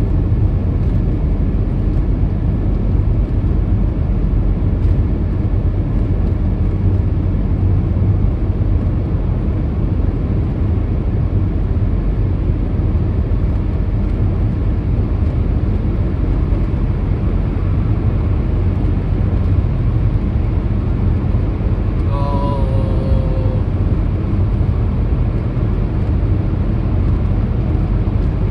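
Steady road noise of a car driving at highway speed through a road tunnel, heard inside the cabin: a low tyre-and-engine rumble. About two-thirds of the way through, a brief pitched sound slides down in pitch.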